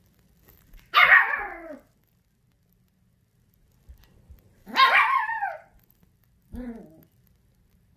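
Small dog barking three times: at about a second in, again near five seconds, and a shorter, lower bark near seven seconds, each falling in pitch.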